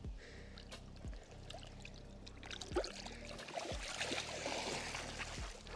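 Water splashing and trickling as an 18-pound mirror carp is put back in the lake, with several dull knocks from handling.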